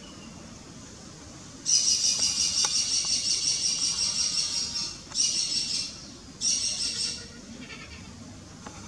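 A rapid, high-pitched chattering call in three bouts: one of about three seconds, then two short ones.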